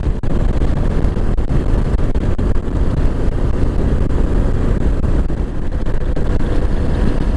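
Kawasaki KLR 650 single-cylinder dual-sport motorcycle on the move: engine running under a steady low rumble of wind and road noise.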